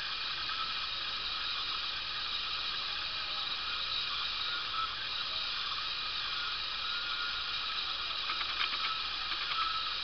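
Steady hiss of background noise, with a quick run of faint ticks near the end.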